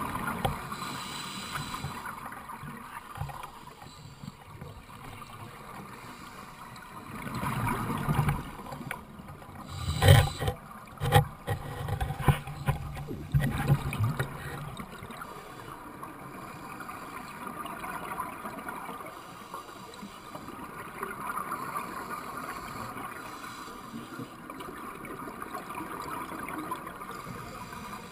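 Underwater water noise picked up by a submerged camera, a steady wash, broken from about eight to fourteen seconds in by loud gurgling bursts of a scuba diver's exhaled regulator bubbles.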